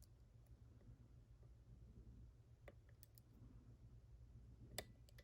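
Near silence with a few faint clicks of a lock pick working the pins inside a pin-tumbler lock cylinder, the sharpest click near the end.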